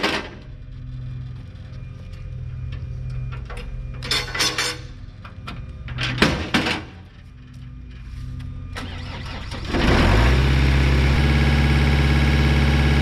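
Trailer loading ramps clanking as they are pulled out and set down, over a low steady hum. About ten seconds in, the Rayco RG50 stump grinder's engine starts and runs steadily and loudly.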